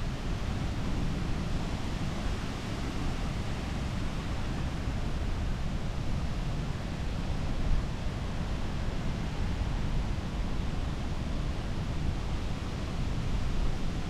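Strong wind blowing across the microphone: a steady low rush of noise with no words.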